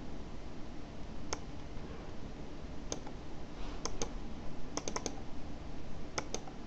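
Scattered sharp clicks of a computer mouse and keyboard while editing a document: single clicks with a quick cluster of three or four about five seconds in, over a low steady room hum.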